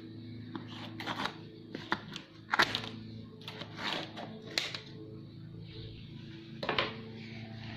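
Scissors snipping through plastic packing straps on a cardboard box, a series of sharp snips and knocks with the loudest about two and a half seconds in. A steady low hum runs underneath.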